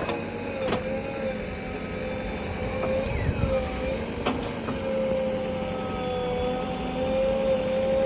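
JCB 3DX backhoe loader's diesel engine running steadily with a constant whine, broken by a few sharp clanks of the machine at work.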